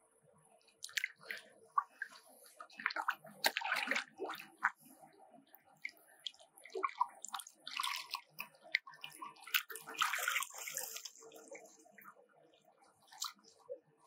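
Lake water sloshing and splashing in irregular bursts as a large carp is released back into the water, with the louder splashes about three and ten seconds in.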